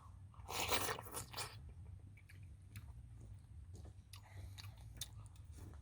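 A person eating udon noodle soup close to the microphone: two loud noisy bursts in the first second and a half, then softer chewing with small clicks.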